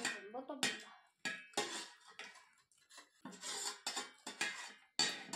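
Steel spoons scraping and clinking against metal plates as rice and curry are scooped up, in a run of short irregular clinks.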